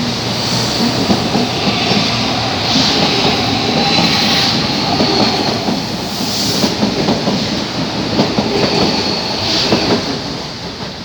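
CPTM series 7000 electric multiple unit pulling out and running past, its wheels clacking over rail joints under a thin high whine. The sound fades near the end as the train moves away.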